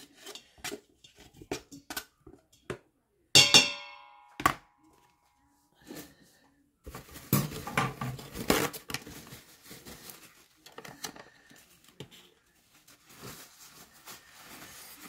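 Cut potatoes and ham being scraped off a plate into a stainless steel cooking pot: scattered knocks and scrapes, a sharp clank against the metal with a brief ringing about three and a half seconds in, then a denser stretch of clatter and scraping midway.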